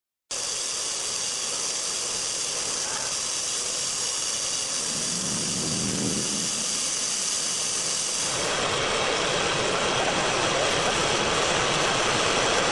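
Core drill running as its bit cuts into road pavement to take a core sample: a steady, noisy hiss that starts abruptly and grows louder and fuller about eight seconds in.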